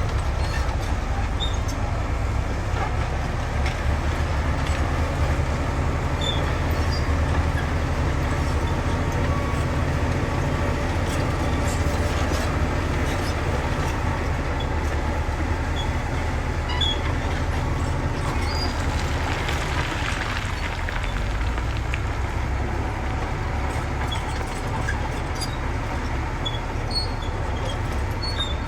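Heavy earthmoving machinery's diesel engines running steadily with a deep, continuous drone, with scattered short high-pitched squeaks, typical of metal parts or crawler tracks moving.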